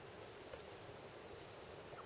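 Near silence: faint steady background hiss, with one brief faint sound about half a second in.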